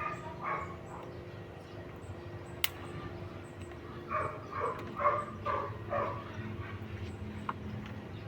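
A quick run of about six short animal calls, roughly two a second, about four to six seconds in, over a steady low hum. A single sharp click sounds a little before three seconds in.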